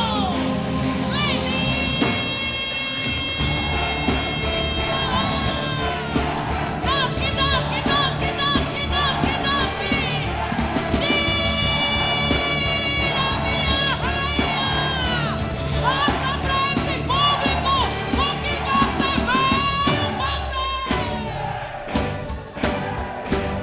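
Festa junina quadrilha music: a melody of long held notes and short bending phrases over a bass line, with a steady drum beat taking over near the end.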